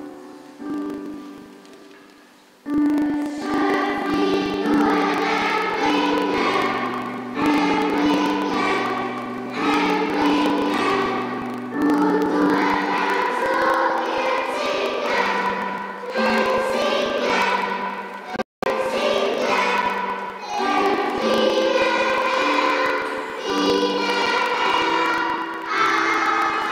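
A children's choir singing a song with keyboard accompaniment. A few keyboard notes open it before the voices come in about three seconds in. The sound cuts out for a split second about two-thirds of the way through.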